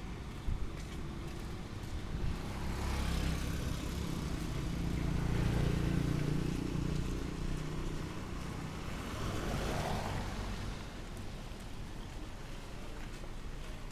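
A motor vehicle passes close by, its low engine rumble swelling to a peak about halfway through and then fading, followed by a shorter swell of hiss as something else goes by, over steady street noise.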